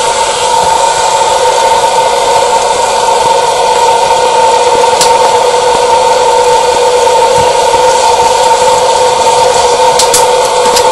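Hot-air popcorn popper running steadily as it roasts coffee beans, its blower fan giving a loud rushing noise with a constant two-note hum. A few sharp clicks sound about halfway through and near the end, with the roast past first crack.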